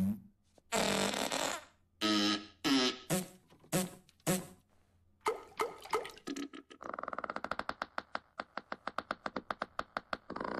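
Comic fart-like noises. Several short, pitched blasts come first, then from about seven seconds a fast sputtering rattle of roughly six pops a second.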